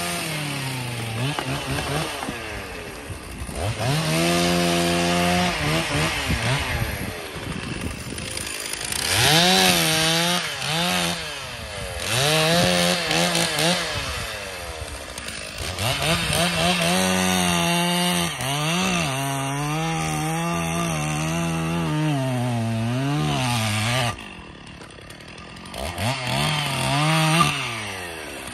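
A small engine revving up and down in repeated bursts, each rising quickly in pitch, holding with a wavering note, then dropping back, with short lulls between. The longest burst runs several seconds past the middle.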